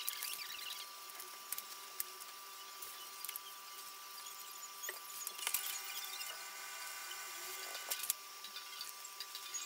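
Cardboard jigsaw puzzle sections and a box lid being slid, scraped and set down on a plastic sheet over a table: scattered clicks, scrapes and rustles, with a few sharper knocks, over a faint steady hum.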